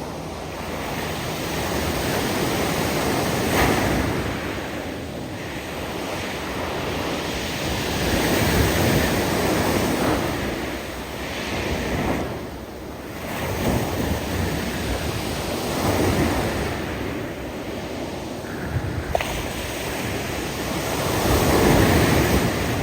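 Waves breaking on a steep shelf of loose beach stones, surging and falling away every few seconds. As each wave recedes, the tumbling stones make a hiss.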